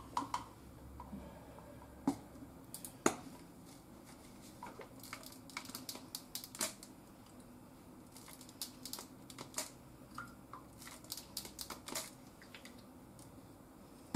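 Light clicks and taps of a metal spoon against a small cup and of seasoning bottles being handled while liquid seasoning is measured out by the spoonful, with a few sharper knocks about two and three seconds in.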